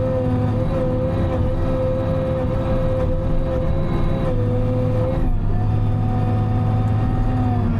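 Timberjack 608 harvester's diesel engine and hydraulics running steadily under load, with a steady pitched whine over the engine; the pitch shifts briefly about five seconds in.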